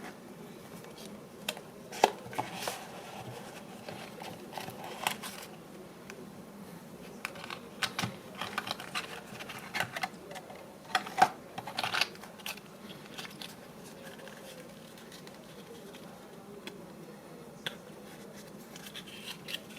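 Hands handling an earphone box and the earphones inside it: scattered clicks, taps and short rustles of packaging and small plastic parts, busiest in the middle with two sharp clicks standing out.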